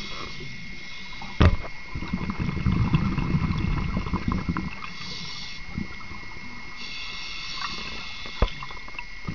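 Underwater scuba breathing through a regulator: a hiss of inhalation alternating with a low bubbling rumble of exhaled air. Two sharp knocks, about a second and a half in and near the end, and a faint steady whine run alongside.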